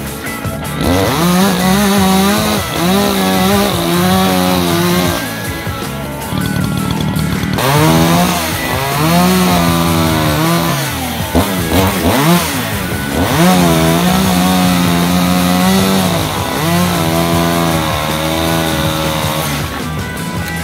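Echo CS-620P two-stroke chainsaw with a 20-inch bar, bucking firewood. The engine holds a steady high note for a few seconds at a time, and its pitch swoops down and back up between these stretches, several times over.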